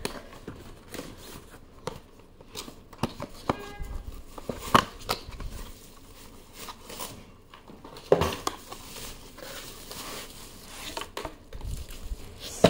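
Product packaging being handled and opened by hand: crinkling and tearing of wrapping with scattered light clicks and knocks, the sharpest knock about eight seconds in.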